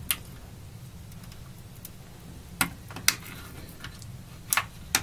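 A CR2032 coin cell being handled and pressed into its battery holder on a circuit board: five short, sharp clicks, one near the start, two in the middle and two close together near the end.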